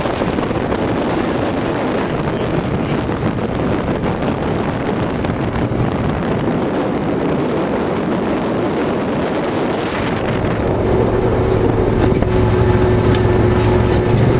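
Arctic Cat Wildcat 1000 side-by-side's V-twin engine running under way, mixed with wind rush and rattle on the microphone. About ten seconds in, the engine settles into a steady, louder drone as it pulls along the straight.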